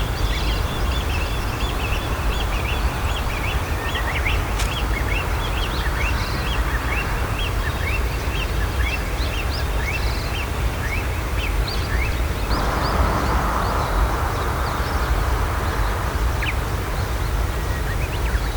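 Small birds chirping over and over in short, quick rising notes, over a steady low rumble of distant traffic. About twelve seconds in, a louder rushing noise sets in and the chirping thins out.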